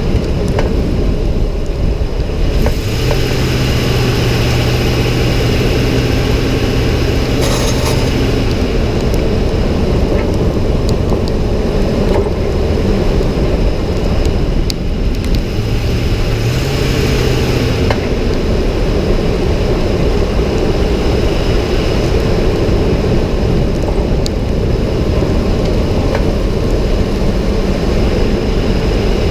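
2006 Ford F-150 pickup driving, with steady engine and road rumble. A low steady hum comes in a few seconds in, lasts about five seconds, and comes back briefly past the halfway point. This fits the noise that the owner hears only under throttle, starting at about 1200 RPM and louder with more throttle and speed.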